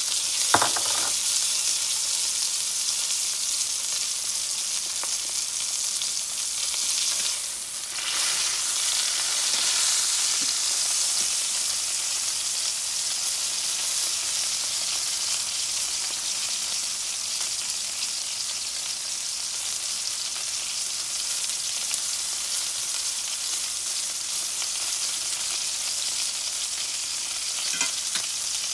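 Sirloin steak frying in butter in a cast-iron skillet: a steady, high sizzling hiss, with a sharp click about half a second in.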